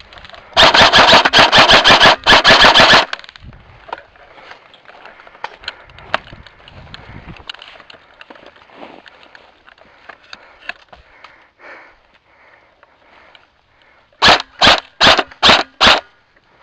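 Airsoft rifle firing close by: a rapid full-auto burst of about two and a half seconds, then, near the end, five single shots at about two and a half a second.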